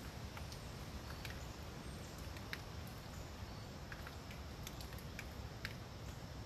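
Scattered water drops ticking sharply onto leaves at irregular intervals, over a steady low rumble of wind.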